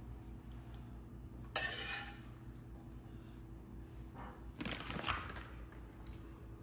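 Metal spoon scraping and clinking against a stainless frying pan as a wet sauce is spooned onto a platter of fried fish: one sharp scrape about a second and a half in, then more scraping and clinks around the five-second mark.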